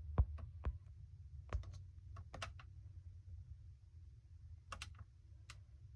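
Light, sharp clicks and taps from handling the MacBook Air, coming in irregular clusters of two or three, over a steady low hum.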